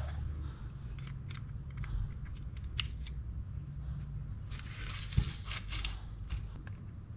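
Small metal parts and tools of a spinning reel being handled, making scattered light clicks and taps, with a short scraping rustle and a dull knock about five seconds in.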